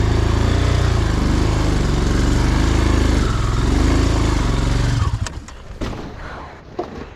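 Motorcycle engine running and revving under load as the bike tries to climb a rocky slope, then cutting out suddenly about five seconds in, followed by a few sharp knocks as the bike falls over.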